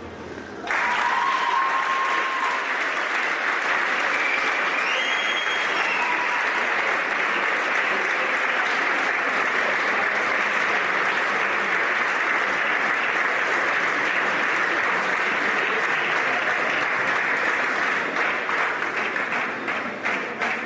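Audience applauding and cheering, breaking out about a second in, with a few high calls or whistles early on; the applause tapers off near the end.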